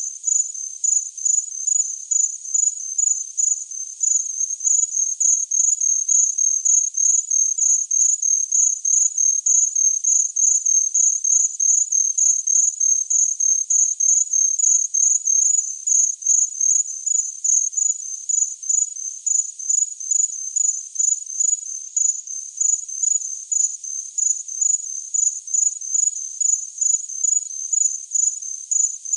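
A cricket chirping steadily: a high-pitched chirp repeating evenly, about two to three chirps a second.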